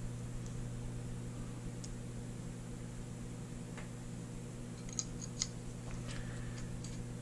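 Faint light clicks of small metal revolver parts handled while the trigger is fitted into the frame, with two sharper clicks about five seconds in, over a steady low hum.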